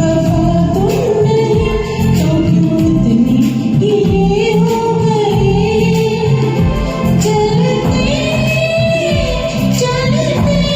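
Hindi film-song duet cover: singing over a recorded backing track, with a held, wavering melody above a steady rhythmic accompaniment.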